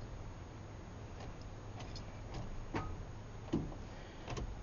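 A few faint, irregular clicks from the 1994 Ford F150's starting circuit, typical of a starter solenoid clicking without cranking: the battery is too dead to turn the 302 V8 over.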